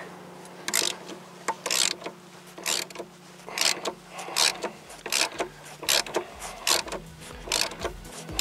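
Socket ratchet clicking in short repeated strokes, about two or three a second and a little quicker later on, as a nut is run down on a battery cable clamp's stud to tighten the clamp.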